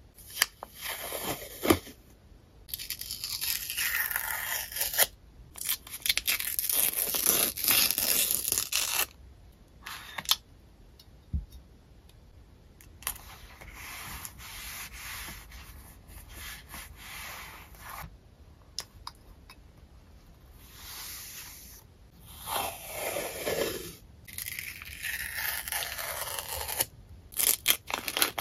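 Wide roll of printed paper tape being peeled off the roll in several long, crackly pulls. Between the pulls, quieter rubbing comes from the tape being pressed down onto a paper journal page.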